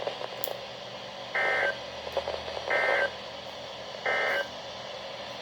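Emergency Alert System end-of-message signal: three short raspy digital data bursts, about a second and a half apart, over a low steady hiss. The bursts mark the close of the alert broadcast.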